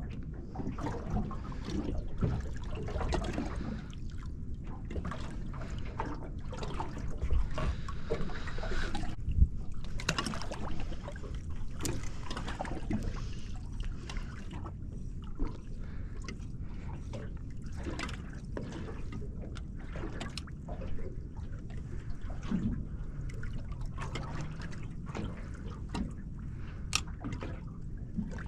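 Water lapping and sloshing against the hull of a small fishing boat, with scattered small knocks and clicks.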